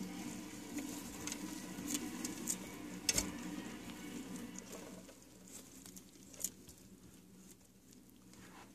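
Light scrabbling and rustling on bark-chip substrate with scattered small clicks, as a frilled dragon is fed crickets from metal tongs. One sharper knock comes about three seconds in. The sound grows quieter after about five seconds.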